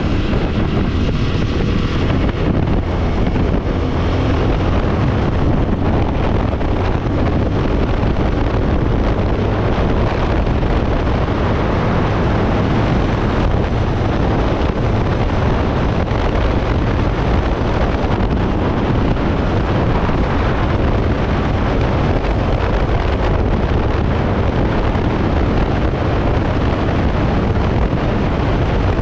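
Wind rushing over the GoPro microphone on a Jawa 42 motorcycle cruising at about 60 km/h, with the single-cylinder engine running steadily underneath. The sound stays constant, with no gear changes or revving.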